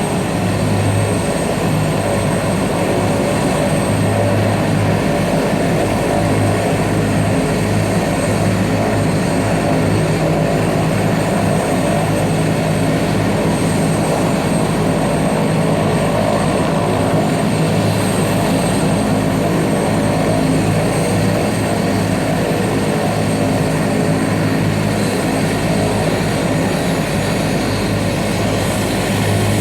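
A helicopter running steadily: a constant loud drone with a thin high whine above it.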